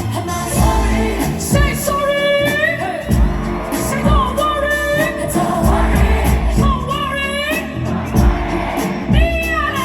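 Live concert music over a loud PA: a deep, pulsing bass beat under a sung vocal line that slides between notes.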